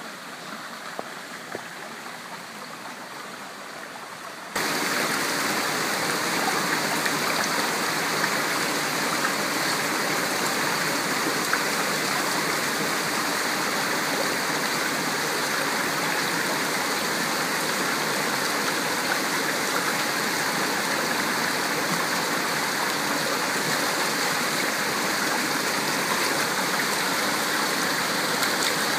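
Stream water rushing and tumbling over rocks, a steady noise. About four and a half seconds in it steps up suddenly to a louder, fuller rush that then holds level.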